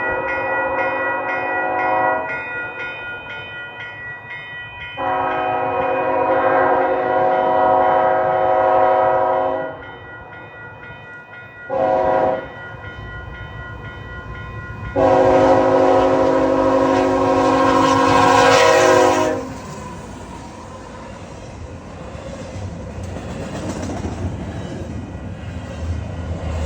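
CPKC locomotive's chord air horn sounding the grade-crossing signal, long, long, short, long, with the last long blast the loudest. After it the train's rumble builds as it passes.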